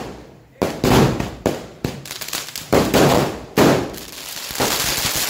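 Aerial fireworks bursting overhead: about six sharp bangs at irregular intervals, each followed by a fading tail.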